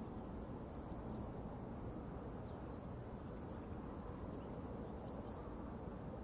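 Steady low rumbling outdoor ambience, with faint short high chirps about a second in and again near the end.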